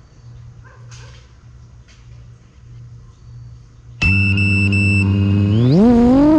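FPV quadcopter's brushless motors starting up suddenly about four seconds in with a loud steady whine. Near the end the pitch rises and wavers as the throttle comes up.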